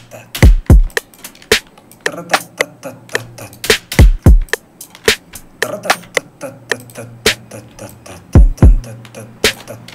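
A programmed hip-hop drum loop playing back in FL Studio at about 110 BPM. Pairs of deep kicks falling in pitch come about every four seconds, with sharp snare-type hits and rapid 808 hi-hat ticks between them, and a low bass note held under parts of the loop.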